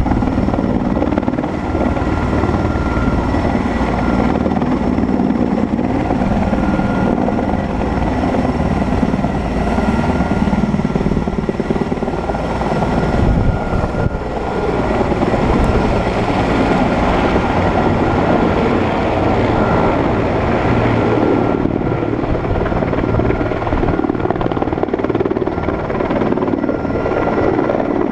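Erickson S-64 Air Crane (Sikorsky Skycrane) helicopter running, with its twin turboshaft engines giving a steady high whine over loud, continuous rotor and engine noise.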